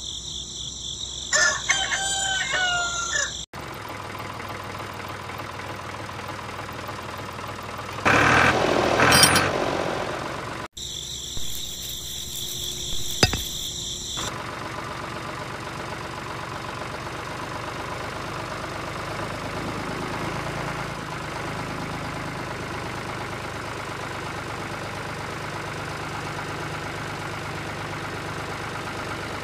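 An opening run of sound clips with a crowing call in the first few seconds and a loud rushing burst about eight seconds in. From about fourteen seconds on comes the steady hum of the small DC electric motor driving a homemade toy tractor.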